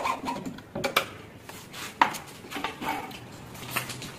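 Irregular metallic clinks and sharp knocks from metal hardware and plywood as a latch is fitted to a plywood cage door.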